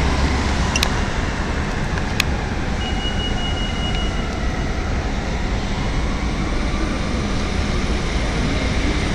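Street traffic with buses passing close by: a steady low rumble of engines and road noise. Two sharp clicks come in the first couple of seconds, and a brief high steady tone about three seconds in.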